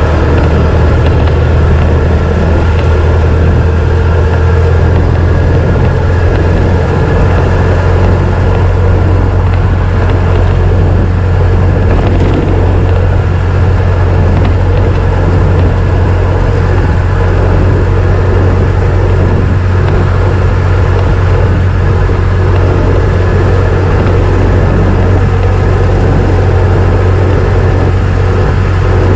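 1926 Ford Model T's four-cylinder side-valve engine running steadily while the car is driven, a loud, even, deep drone. The low tone shifts slightly about six seconds in.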